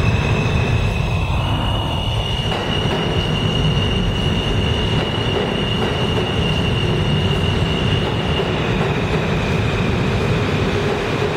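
New York City subway train running into the station alongside the platform: a steady heavy rumble of wheels on rail with a high, steady whine on top, which steps slightly up in pitch about a second and a half in and drops back near the end.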